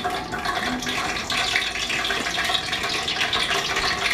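Hot grease sizzling in a frying pan with many small pops and crackles over a steady hiss.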